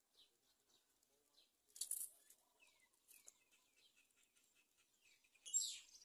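Faint, thin high chirping from a myna nest, with a couple of short falling notes. Two brief, louder flurries of wing-flapping and rustling, about two seconds in and near the end, as the adult black myna moves off and onto the nest.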